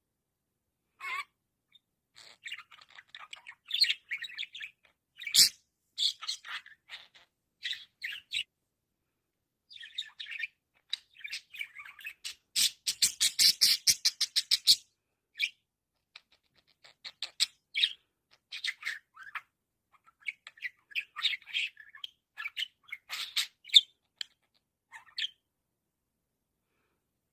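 A budgerigar chattering and warbling in irregular bursts of high chirps. About halfway through comes a fast run of clicking notes, about eight or nine a second. It falls silent a couple of seconds before the end.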